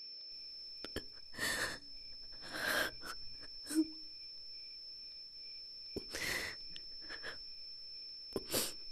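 A woman breathing in sharp, heavy gasps, five short breaths spread over several seconds, with a few faint clicks. A steady faint high whine runs underneath.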